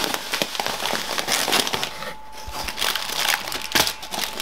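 Rummaging through a cardboard box of groceries: packaging rustling and crinkling, with irregular clicks and a few knocks as items are shifted.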